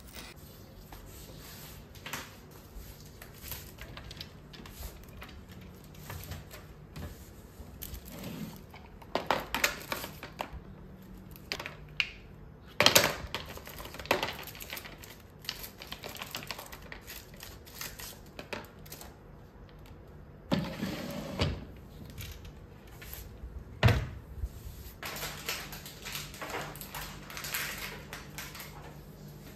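Small salon items being handled and put away: scattered clicks, light knocks and plastic rustling, with a few louder knocks, the sharpest about halfway through.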